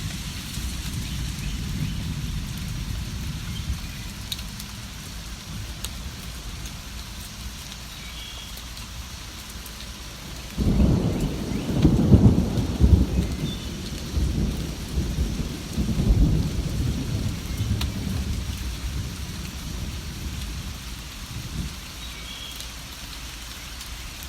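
Steady rain with a rolling rumble of thunder that starts about ten seconds in, swells a second time and fades. A few faint bird chirps come through now and then.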